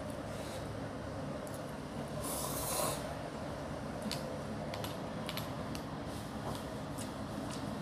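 Close-up eating sounds of cup noodles: a short slurp a little over two seconds in, then chewing with a run of small sharp clicks from the mouth and the spoon in the paper cup.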